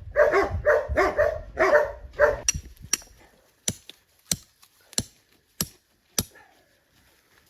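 A dog barking repeatedly, about two barks a second, stopping about two and a half seconds in. Then about seven sharp knocks follow at an even pace, roughly one every half second or so.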